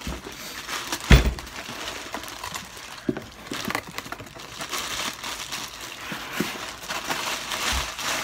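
Plastic packaging crinkling and rustling as parts are unwrapped from a cardboard box, with a sharp knock about a second in and a few softer knocks later.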